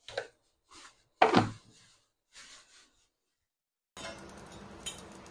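A few short knocks from the steel mixer-grinder jar being handled, the loudest about a second and a half in. Near the end a faint steady room hiss comes in, with a light click.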